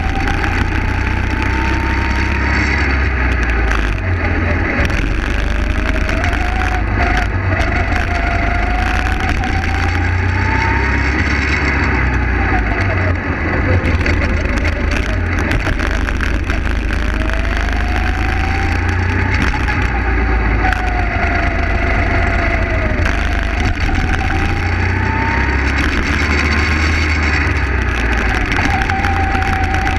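Go-kart engine heard from on board, its pitch climbing as it accelerates and dropping as it slows for the corners, about five times over, above a strong low rumble.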